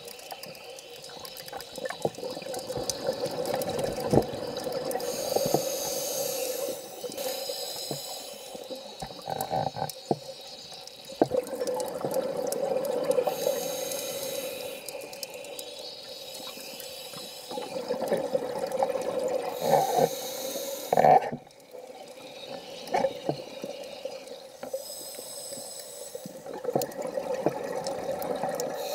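Scuba diver breathing through a regulator, heard muffled underwater through the camera housing. Rushes of hiss and exhaled bubbles come every seven seconds or so, with scattered small clicks between them.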